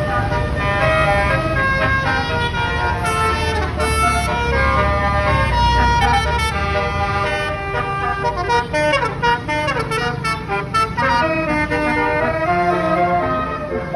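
Basuri telolet bus horn, a multi-tone musical horn, playing a tune of stepped chord-like notes with a falling glide about nine seconds in, over the low rumble of the bus engine.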